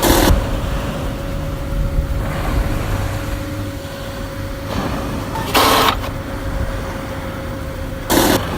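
Experimental noise music made without instruments: a low, engine-like rumble under a steady held tone, cut by short loud bursts of noise at the start, about five and a half seconds in, and just before the end.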